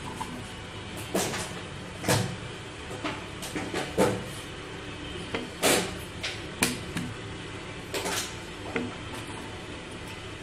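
Wooden rolling pin working a sheet of dough on a countertop: a string of irregular sharp knocks, about a dozen, as the pin bumps and rolls against the counter.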